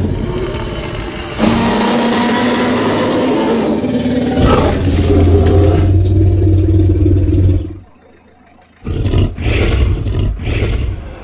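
Dinosaur roar sound effect: long, deep roars for the first seven or so seconds, then after a brief gap a string of four or five shorter roars.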